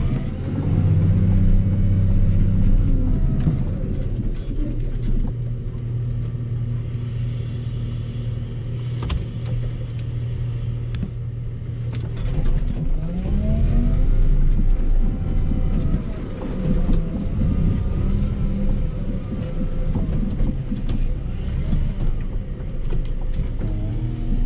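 Volvo L60H wheel loader's diesel engine running under load while pushing snow, heard from inside the cab. The engine revs up and back down about a second in and again around halfway through, with a few short knocks.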